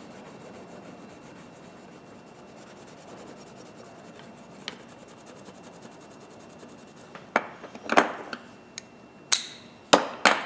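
Fine 4/0 steel wool rubbing over the freshly blued steel of a pair of grooved pliers, buffing the finish to a sheen. Several sharp metallic knocks and clicks come in the last three seconds.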